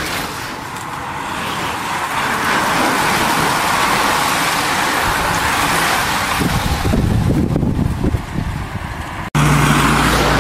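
A bunch of racing bicycles passing close by: a rushing hiss of many tyres on tarmac that builds and holds. From about six seconds a car's engine rumbles in as it approaches. After a sudden cut near the end, a steady low hum takes over.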